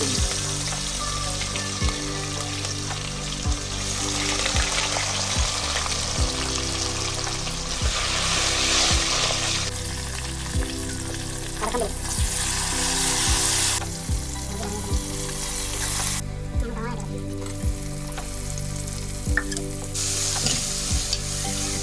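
Food sizzling in hot oil in a pan on a gas stove, the sizzle swelling and easing in waves.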